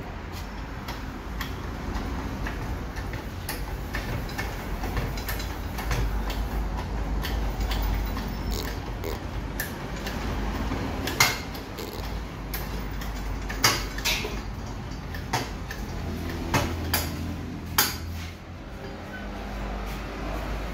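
Steel scissor-type motorcycle lift being raised by working its jack lever: irregular metal clicks and clanks over a low steady hum, with a few sharper knocks in the second half.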